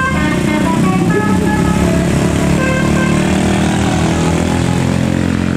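Multi-tone 'telolet' bus horn playing a string of short melodic notes over the steady running of vehicle engines; the horn notes fade out about halfway through, leaving the engines.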